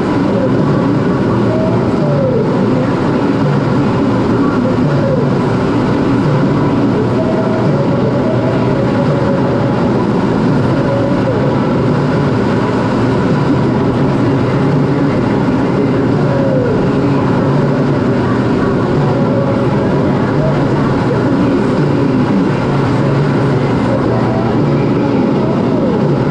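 Steady in-flight noise inside the cockpit of a Canadian CT-114 Tutor jet trainer: its single turbojet engine running and air rushing over the canopy.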